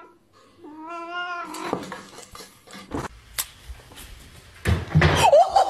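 A domestic cat meowing: one long, wavering meow about half a second in. Scattered knocks follow, then a loud noisy stretch near the end.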